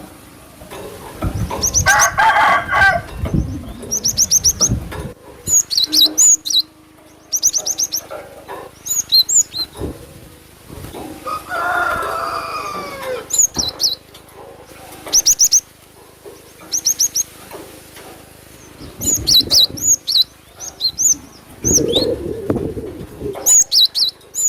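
Cinereous tit (glatik batu) calling: repeated short, high, sharp chirps in quick groups. A rooster crows about halfway through.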